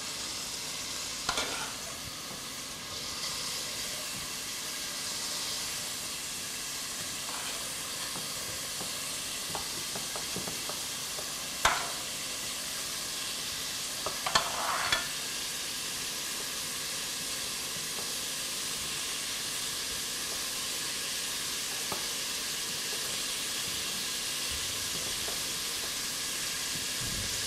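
Cubes of beef sizzling steadily as they sauté in hot oil in a pot, the searing stage at the start of a meat soup. A few sharp knocks of a knife on a wooden cutting board come through, the clearest about twelve and fifteen seconds in.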